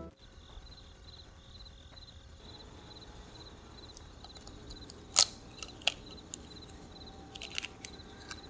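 Faint crickets chirping in an even rhythm, with two sharp clicks about halfway through, the first one loud. Near the end comes a quick run of small cracks as an eggshell is broken open over a glass bowl.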